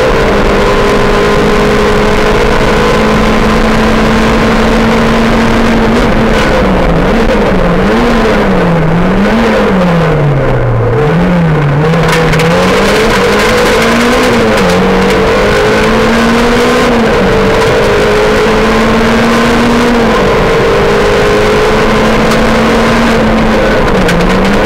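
Rally car engine heard from inside the cockpit, running hard at high revs on a stage. A few seconds in, the revs drop and climb again several times in quick succession, then hold steady; the revs drop again near the end.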